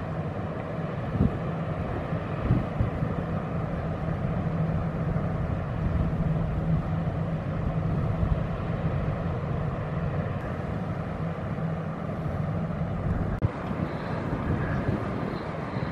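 Steady low drone of a large RoRo cargo ship's engines as the vessel passes, with a few dull thumps about one, two and a half, and thirteen and a half seconds in.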